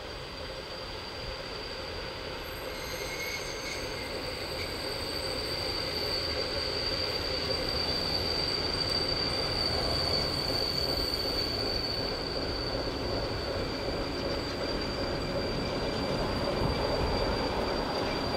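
S200 diesel locomotive hauling a train slowly around a curve, its engine running under a steady high-pitched wheel squeal from the curved track. The train grows gradually louder as it approaches.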